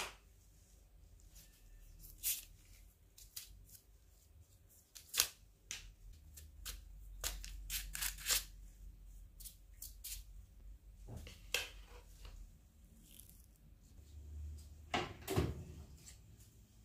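Quiet, scattered clicks and taps of kitchen handling, with a heavier knock near the end as the oven door is let down open.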